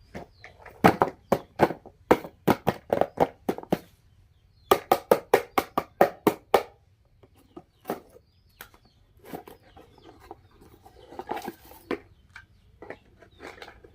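Rapid runs of sharp plastic clicks from toy vehicles being handled, about ten in a row twice over, then sparser, softer clicking and rustling.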